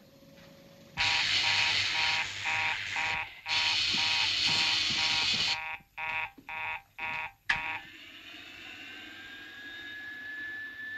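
An electric buzzer sounds harshly, first in a long burst broken by a few brief gaps, then in about five short pulses. After that, a quieter hum remains, with a high whine slowly rising in pitch.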